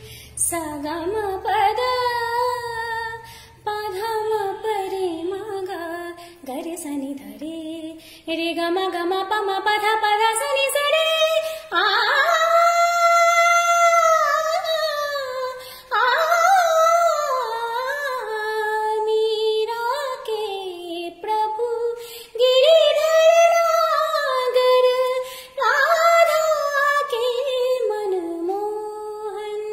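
A woman singing solo without accompaniment, in long phrases with sliding pitch and sustained notes. Her loudest passage is a high held note about twelve seconds in.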